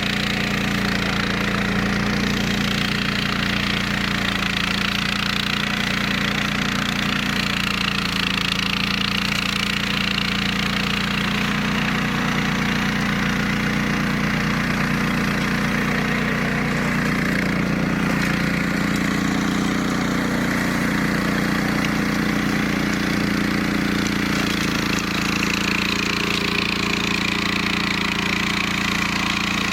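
Flail mower's 15 hp Hyundai engine running steadily at a constant speed.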